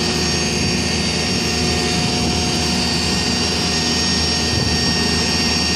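Backhoe engine running steadily under load as it holds and swings a suspended load, with a steady high-pitched whine over the engine hum.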